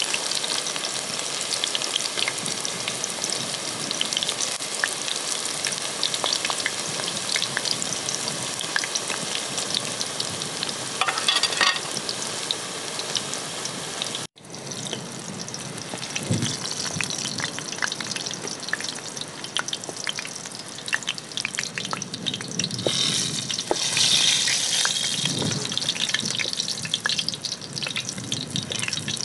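Eggplant slices shallow-frying in hot oil in a pan, sizzling and crackling steadily. The sound cuts out for an instant about halfway through.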